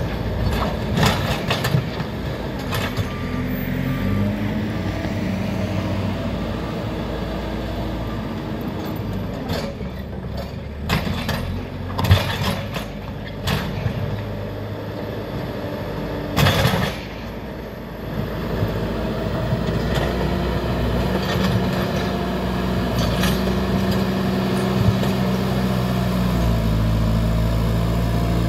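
JCB backhoe loader's diesel engine running and revving up and down as the machine works its front loader bucket through dirt, with a few sharp clanks and knocks from the bucket about halfway through. The engine pulls harder near the end as the bucket digs into a soil pile.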